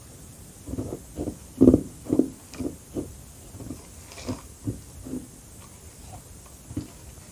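Close-miked chewing of carbonated crushed ice: a run of crunches about two a second, the loudest a couple of seconds in, tailing off, with one last crunch near the end.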